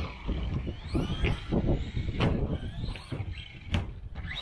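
LC Racing LC12B1 1/12-scale RC buggy's 2850-size 5300kV brushless motor whining, rising and falling in pitch with the throttle, over the rumble of its tyres on the track, with a few sharp knocks from the buggy hitting the ramps.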